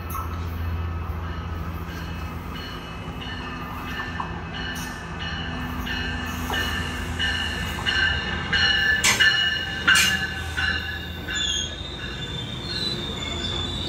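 Sounder bilevel commuter train pulling into a station: low rumble under high wheel and brake squeals that grow louder as it slows, with two sharp clanks about nine and ten seconds in and a higher squeal near the end.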